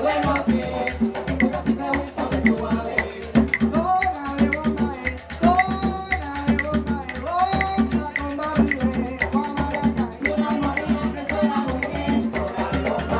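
Live Puerto Rican bomba music: hand drums and a maraca keep a steady, busy rhythm, with voices singing over them in the middle stretch.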